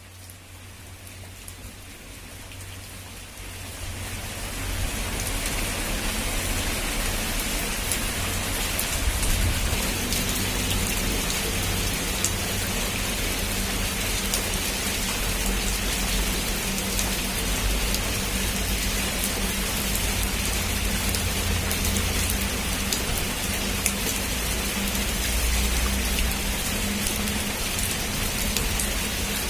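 Heavy rain falling on a rooftop: it fades in over the first few seconds, then a steady downpour with scattered drop taps and a low rumble underneath.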